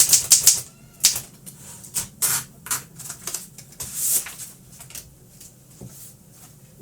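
Keys of a 1936 Seidel & Naumann Ideal office typewriter striking: a quick run of keystrokes at the start, then a few single strokes, dying away after about four seconds.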